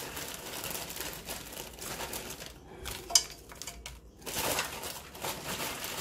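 Rustling and scraping as mixed vegetables are added to and moved about in a cooking pot, with a sharp clink about three seconds in.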